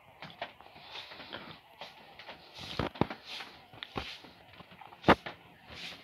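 A run of irregular clicks, knocks and rustling, the loudest a single sharp knock about five seconds in.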